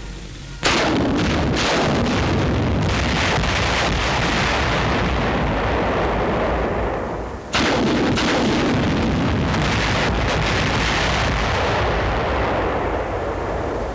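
A salvo of ten 7.2-inch T-37 demolition rockets fired from a T-40 launcher on an M-4 tank: a sustained rush of blasts with several sharp cracks. It comes in two long bouts that each start abruptly, the first about half a second in and the second about halfway through, and each dies away.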